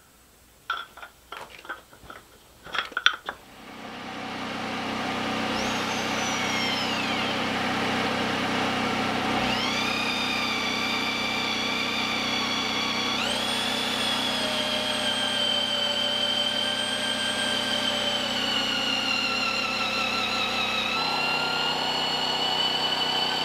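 Power drill boring pin holes for 1-inch wooden dowels into a log handrail post. The motor whine drops and climbs in pitch several times as the bit bites and frees, over the steady hum of a portable generator. A few knocks come first.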